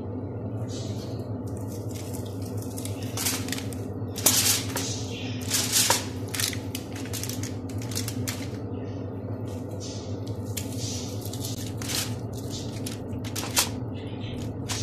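Hands placing pieces of potato, onion and tomato into a foil-lined baking tray of chicken: irregular light clicks and rustles of food and aluminium foil, over a steady low hum.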